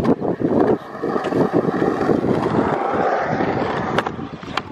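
Skateboard wheels rolling on concrete, a steady rumble, with a sharp board clack at the start and two more near the end.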